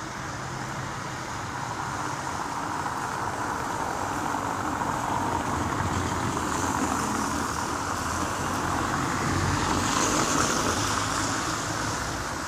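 Road traffic noise: a steady hiss of tyres and engines that slowly swells, loudest about ten seconds in as a vehicle goes past, then eases off.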